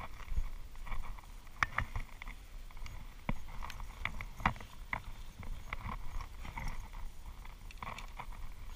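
Handling noise: scattered light clicks and knocks at irregular intervals, over a low rumble.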